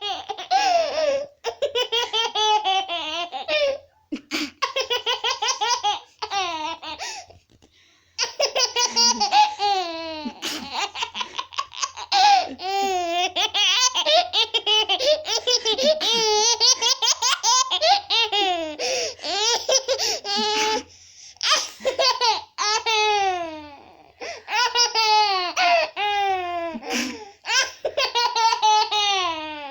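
A baby laughing in repeated bouts of rapid, high-pitched laughter, with short breaks between bouts.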